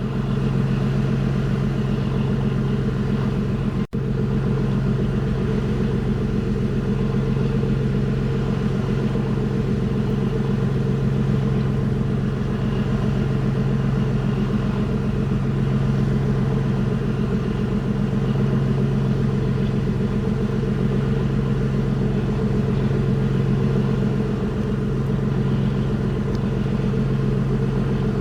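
Engine of the fishing boat Shoeimaru running steadily at an even speed, a constant low hum. The sound cuts out for an instant about four seconds in.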